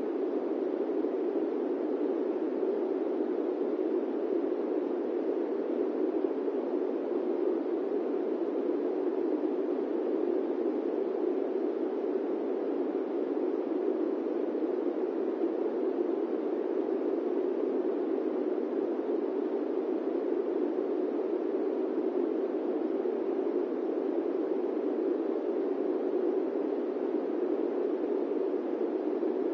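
Electric fan running with a steady, even rush of air, a low, dull noise that does not change.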